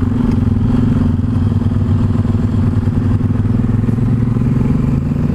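Yamaha XT 660 Z Ténéré's single-cylinder engine running at steady, moderate revs while riding through a bend, heard loud and close from the bike itself.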